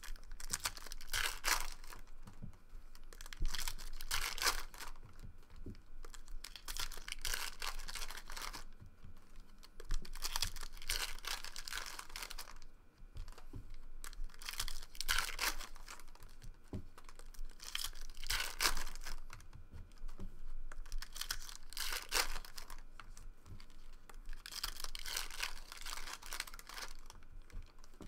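Foil wrappers of Bowman Draft baseball card packs being torn open and crinkled one after another, a short ripping burst every few seconds.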